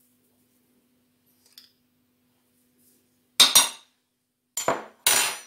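A metal spoon and a small glass salt jar clinking against dishes and the counter: a faint tap, then three sharp clinks in the second half, the last ringing briefly.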